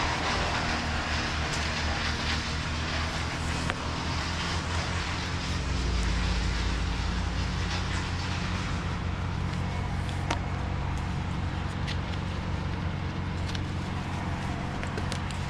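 An engine running steadily at a low, even idle, with a few faint clicks over it.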